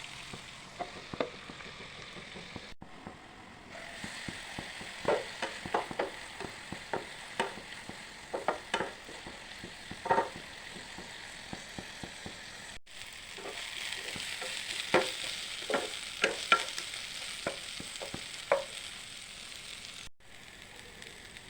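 Long beans sizzling as they stir-fry in a pan, with a steady frying hiss. A spatula knocks and scrapes against the pan as they are stirred, in two runs of quick strokes.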